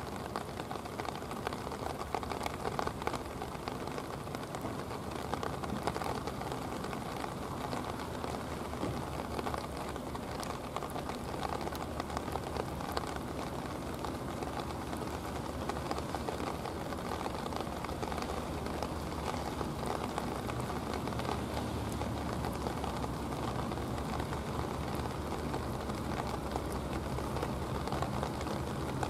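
Steady rain falling, a dense hiss full of fine drop ticks. Beneath it is a low, steady drone from the passing tugboat's engine, clearer in the second half.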